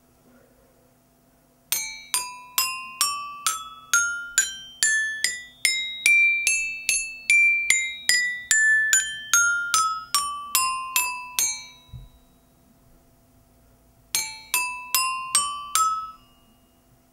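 Children's toy xylophone with coloured metal bars struck one at a time with a plastic-ball mallet, about two notes a second, each ringing bright and clear. It plays up the scale to the top bar and back down again, then after a pause of about two seconds starts a second run up the scale.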